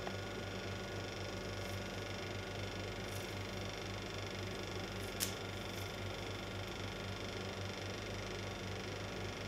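Steady low hum over a constant hiss, with one sharp click about five seconds in.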